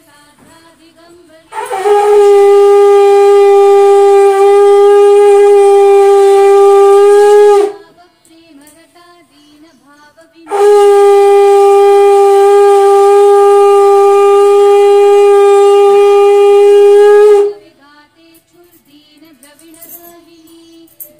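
Conch shell (shankh) blown in two long, loud blasts of about six to seven seconds each, a few seconds apart. Each blast is held on one steady note and drops off at the end.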